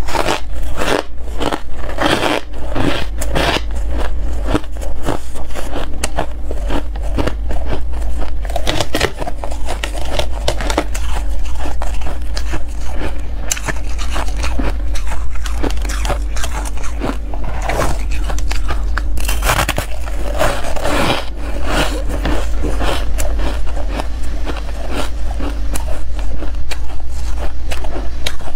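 Frosty shaved ice being bitten and chewed close to the microphone: loud, irregular crunching bite after bite, over a steady low hum.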